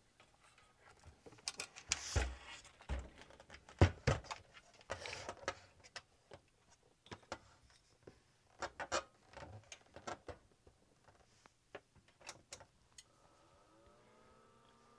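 Clicks, knocks and scrapes of an HP 54603B oscilloscope's metal chassis and casing being handled and closed up. Near the end the scope is switched on: a faint hum rises in pitch and then holds steady as its cooling fan spins up.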